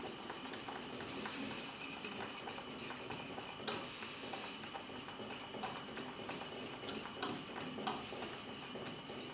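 Wire whisk stirring simmering water round in a stainless-steel saucepan to make a vortex for a poached egg, its wires ticking steadily against the pan. There are a few sharper clinks, one a little before 4 seconds and two between 7 and 8 seconds in.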